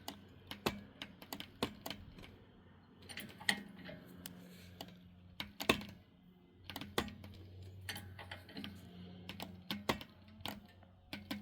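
Irregular sharp clicks and creaks as a tire is strained off a Hutchinson beadlock wheel with a pulling strap, the tire working loose and twisting on the rim. A faint low hum comes and goes underneath.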